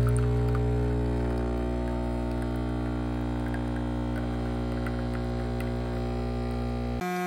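Capsule espresso machine's pump humming steadily while it brews espresso into a stainless steel pitcher; near the end the hum abruptly changes to a thinner, higher buzz.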